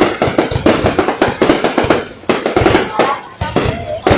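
Fireworks going off in rapid succession: many overlapping bangs and crackles, several a second, loud and unbroken.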